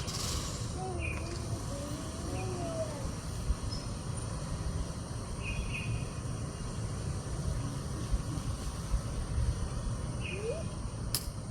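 Birds giving short chirping calls a few times, over a steady low rumble of background noise. Faint distant voices can be heard.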